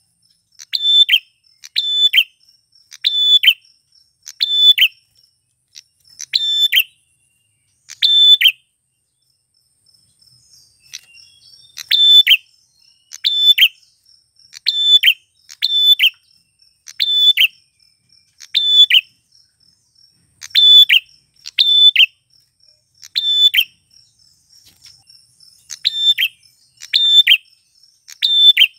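Male prinia (prenjak) calling: loud, sharp chirps repeated about once a second, with a pause of a few seconds about nine seconds in. A faint steady insect trill runs underneath.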